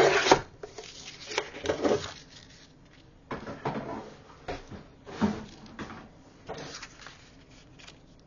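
A sliding paper trimmer cutting a sheet of patterned scrapbook paper at the start, followed by irregular bursts of paper rustling and light knocks as the trimmer is moved aside and the cut paper is handled and laid down.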